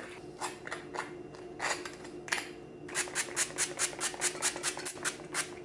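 A small hand pump-spray bottle spritzing onto bagels: a quick run of short hisses, about five a second for two seconds in the second half, after a few scattered handling clicks.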